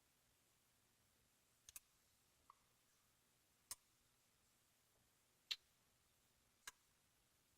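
Faint, sharp metallic clicks from a dimple pick and tension wrench working the pins of an Abus EC75 dimple padlock: a quick double click, then a few single clicks one to two seconds apart.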